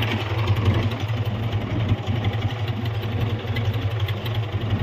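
Fishing boat's engine running steadily, turning the deck rope winch that hauls in the net line.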